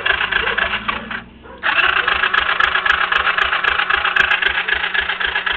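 Yamaha Breeze 125's single-cylinder four-stroke engine being cranked by its starter in two tries, with a short pause about a second in. It turns over steadily without catching, a sign of a no-start the owner has not traced.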